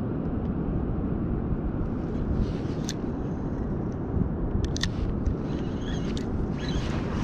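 Steady low rumbling noise with a few sharp clicks, about three seconds in and twice just before five seconds, from a spinning rod and reel being handled while jigging a lure.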